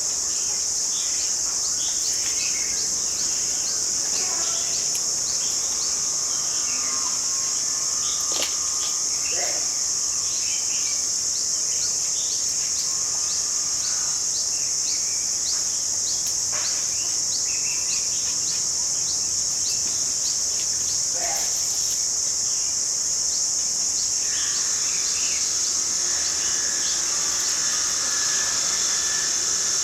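Steady high-pitched insect drone, with many short bird chirps and calls scattered over it.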